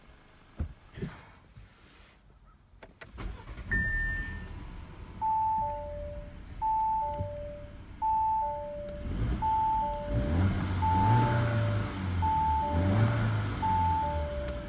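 Audi Q7's 2.0-litre turbocharged four-cylinder idling and then revved twice in quick blips, heard from inside the cabin. Over it, a single high chime and then a repeating two-tone high-low warning chime, about every second and a half, the engine-running alert that sounds with the ignition on and the door open. A few sharp clicks come near the start.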